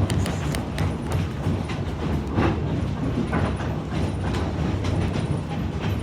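Train riding along the track behind a diesel locomotive: a steady low rumble with irregular clicks and knocks from the wheels running over the rails, heard from aboard.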